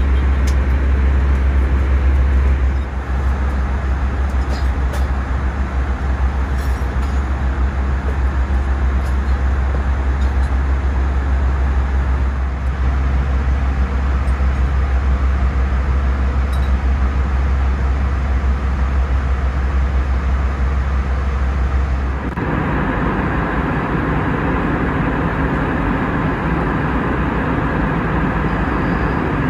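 Steady cabin noise of an Airbus A319 airliner, its engines and airflow heard from inside the cabin, with a few faint clicks. About 22 seconds in the sound changes abruptly: the deep low rumble falls away and a brighter, even rushing noise takes over.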